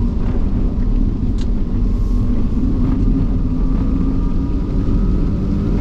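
Cabin noise of a GMC Hummer EV being driven: a steady low rumble of tyres and chassis, with a faint steady tone running through it.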